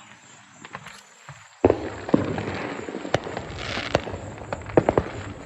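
Fireworks going off: a few scattered pops, then a sudden loud bang about a second and a half in, followed by dense crackling and repeated sharp pops.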